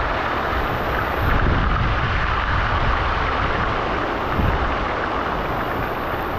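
Tilapia frying in a pan of hot oil, a steady sizzling hiss, with a low uneven rumble of wind on the microphone.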